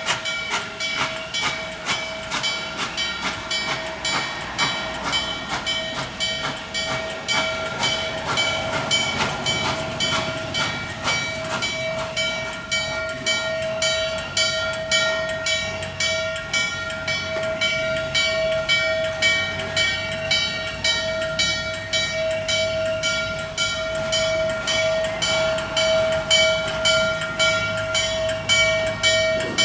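Norfolk and Western J-class steam locomotive 611 running with an even, repeating beat of about two to three pulses a second over a steady high tone.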